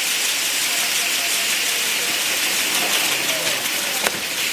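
Fireworks crackling and hissing in a dense, steady sizzle, with one sharper crack about four seconds in and crowd voices faintly underneath.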